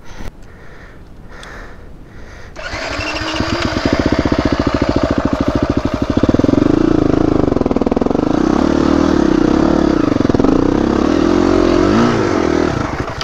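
Dirt bike engine picking up about two and a half seconds in, its revs climbing quickly. It then runs loud under throttle, the pitch rising and falling, and eases off near the end.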